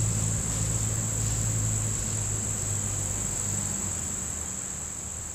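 Steady, high-pitched chorus of insects such as crickets in summer woods, with a low steady hum beneath it; the whole sound slowly fades.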